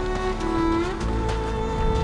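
Background music made of long held notes that change pitch every half second or so.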